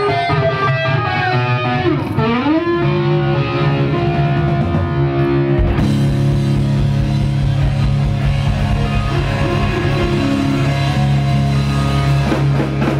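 Live rock band with a loud electric guitar: sliding, bending notes in the first few seconds, then the band holds long sustained notes over drums from about halfway through.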